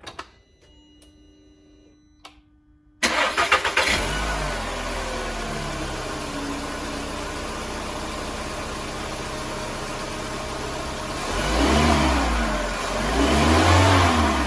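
2014 VW Jetta's 2.0-litre four-cylinder engine cranked and starting about three seconds in, after a few faint steady electronic tones with the ignition on; it settles into a steady idle and is then revved twice near the end. This is the first start after a new ignition coil unit was fitted to cure misfires.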